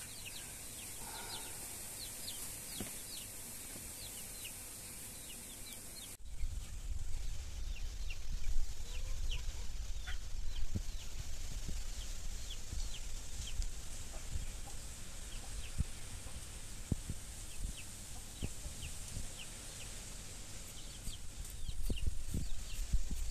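Chickens clucking and small birds chirping in the background, over a low rumble that starts suddenly about six seconds in.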